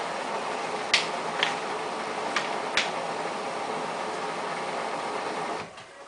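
Samsung WF8804RPA front-loading washing machine's drum turning through its high-water delicates wash, a steady churning of water and clothes with a few sharp clicks in the first three seconds. Near the end the drum stops and the sound drops away suddenly.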